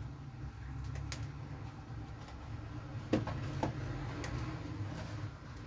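An analog multimeter and its test leads being handled: a few scattered light clicks and knocks over a steady low hum.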